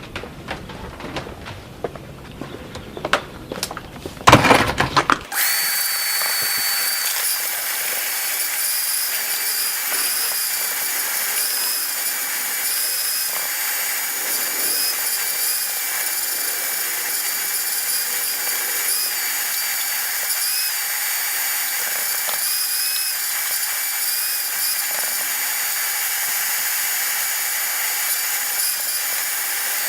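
Small electric vacuum cleaner switched on about five seconds in, then running steadily with a high whine that wavers slightly in pitch. Before it starts there are light clicks and knocks of handling.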